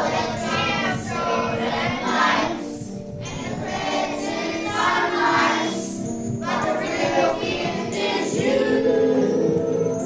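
Group of schoolchildren singing a Christmas song together, in sung phrases with short breaks between them, over steady backing music.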